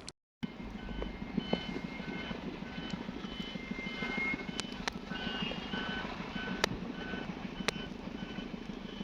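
A heavy vehicle's engine running steadily with a fast low pulse, while a reversing alarm sounds short repeated beeps at a fixed pitch. A few sharp clicks stand out over it.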